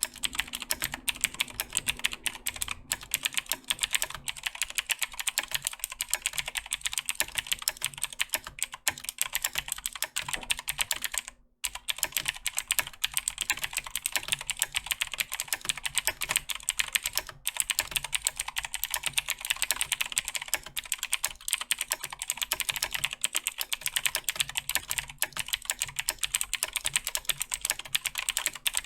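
Continuous fast typing on a Razer BlackWidow 2014 Tournament Edition mechanical keyboard with clicky Razer Green switches: a rapid stream of sharp key clicks, breaking off for a moment about eleven seconds in.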